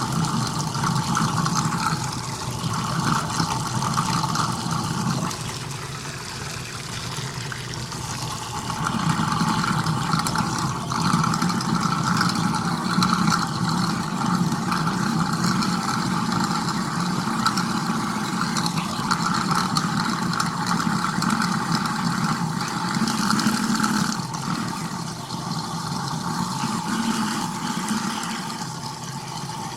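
Kitchen garbage disposal running, a steady motor with a rough, rattling noise that eases off for a few seconds about six seconds in and again near the end.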